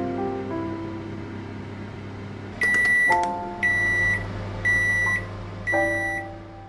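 LG convection microwave oven humming as it runs, then giving four loud, high beeps about a second apart, starting a little before the middle: the signal that the cooking cycle has finished.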